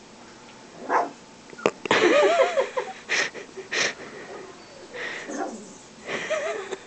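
Two-and-a-half-week-old greyhound puppies yipping and squealing as they scuffle. There is a quick run of short, wavering cries about two seconds in, and another brief one near the end.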